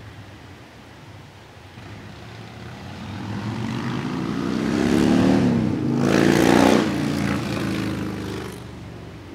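Departing Amtrak train's P42 diesel locomotive engine revving up as the train pulls away, its pitch and loudness climbing to a peak about six seconds in, then easing back.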